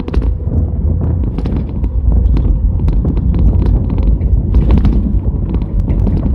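Cabin noise of a 1977 Chevrolet Camaro under way: a loud, steady low rumble of engine, road and wind buffeting, with scattered sharp clicks and rattles.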